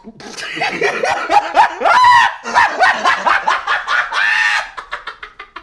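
A man yelling excitedly in a string of short, loud, high yelps with sliding pitch.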